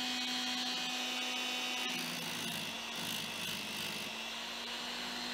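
Inexpensive electric chainsaw sharpener running with a steady motor hum. About two seconds in, its grinding wheel is pressed onto a chain tooth for roughly two seconds: the motor sags slightly under the load and a grinding hiss is heard. It then returns to free running.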